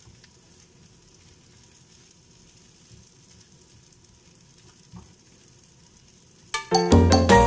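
Chopped goat meat sizzling faintly in a frying pan as it is stirred with a wooden spatula, with a light knock about five seconds in. Upbeat Latin-style music with a beat comes in loudly near the end.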